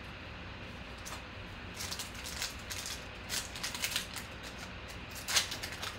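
Foil wrapper of a Panini Contenders football card pack crinkling and tearing as it is pulled open by hand, a run of sharp crackles starting about two seconds in.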